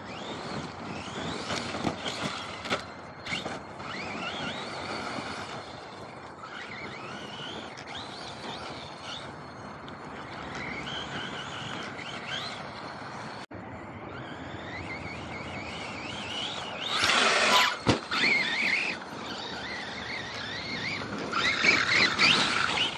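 RC monster truck's motor whining in rising and falling surges as it is throttled around on sand, with two louder full-throttle bursts in the second half and a sharp knock between them.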